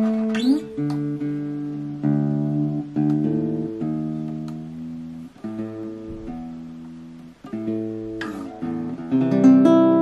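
Ibanez GA35TCE nylon-string classical guitar fingerpicked: chords and single notes plucked and left to ring, with a short slide up in pitch near the start.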